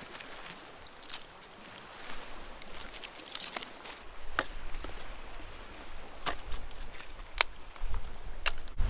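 Dry sticks and branches being laid and dropped onto a stone fire ring: a handful of sharp wooden clacks as they land on charcoal and each other, with a low rumble building near the end.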